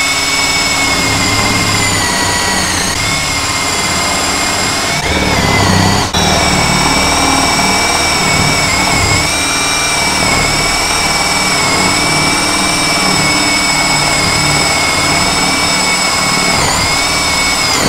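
JPT 21V brushless cordless drill running steadily as an 18 mm bit bores through a wooden plank: a steady high motor whine over the rough rumble of the bit cutting wood, with a brief dip about six seconds in.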